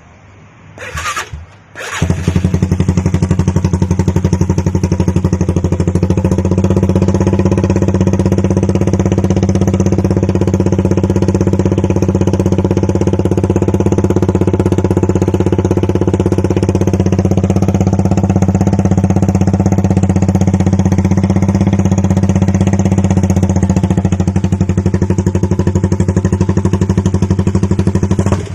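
Suzuki Raider R150 single-cylinder four-stroke engine starting about two seconds in, then running steadily through a conical aftermarket exhaust pipe.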